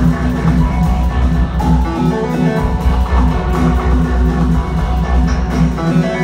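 Live nu-jazz band playing loudly: drum kit, guitar and keyboards over a deep bass line. The deep bass drops out briefly about two and a half seconds in.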